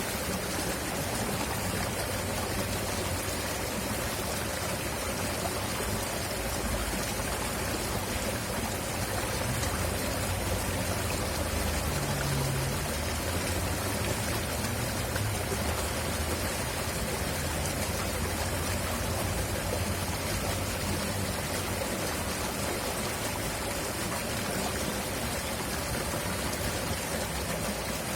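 River water flowing loudly over rocks: a steady, unbroken rush.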